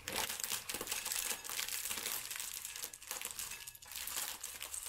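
Plastic food packaging crinkling as it is handled, starting suddenly and going on without a break.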